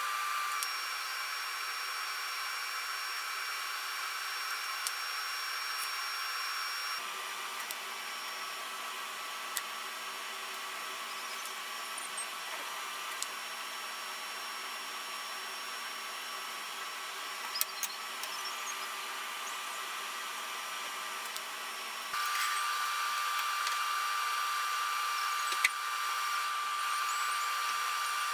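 Steady whir of a shop power tool or motor, carrying a high steady tone. Its pitch and tone change abruptly about seven seconds in and again about twenty-two seconds in, with a few faint clicks.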